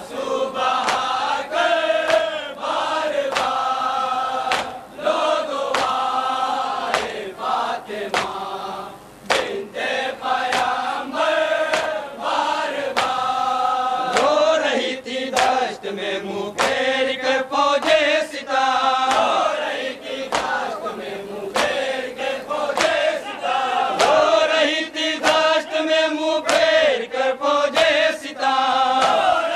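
A group of men chanting a nauha, a Muharram lament, in unison with long held notes. Sharp slaps recur throughout, the hand-on-chest beating of matam.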